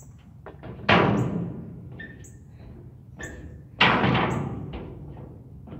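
A skateboard hitting the concrete twice, about three seconds apart, each bang trailing off over about a second, with lighter knocks of the board in between. Birds chirp in short high calls.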